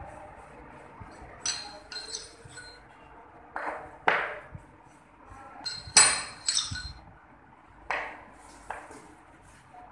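Sharp metallic knocks and clinks of steel on steel from a large engine connecting rod being handled, some of them ringing briefly. They come in small groups, about ten in all, and the loudest comes about six seconds in.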